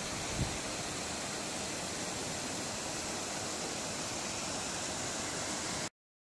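YiYuan paddle wheel aerators churning pond water: a steady rushing splash, with a brief knock about half a second in, cut off abruptly near the end.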